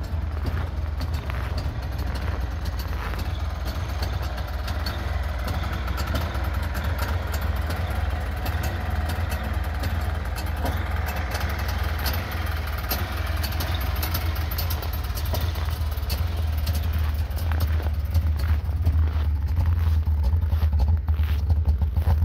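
Wartburg 353W's three-cylinder two-stroke engine idling steadily while it warms up after a cold start at −17 °C.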